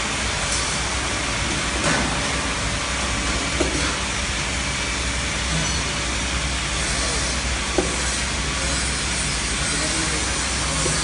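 Automatic bottle conveyor and sticker labeling machine running: a steady mechanical hum and hiss, with a few sharp clicks.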